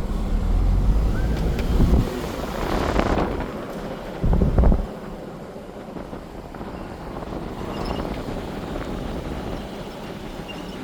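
Car driving along, a steady rumble of road and engine noise with wind on the microphone, louder for the first few seconds, with a low thump about four and a half seconds in, then steadier and quieter.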